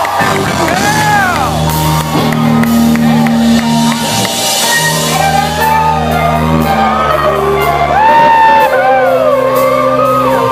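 Live soul band playing loudly with singing, recorded from within the audience, with whoops and shouts from the crowd over the music.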